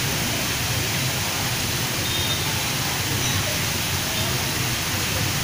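A strong artificial rock waterfall, water pouring in many streams over stone ledges into a pond: a steady, even splashing.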